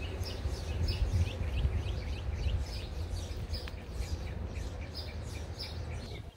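A small bird chirping over and over, about three short chirps a second, with a steady low rumble underneath.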